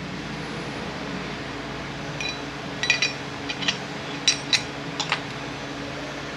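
Light metallic clinks and taps of transfer case parts being handled, a run of them in the middle, over a steady mechanical hum.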